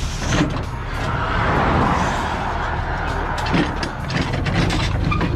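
A vehicle engine idling, with a steady rough mechanical noise over it from about a second in until near the end.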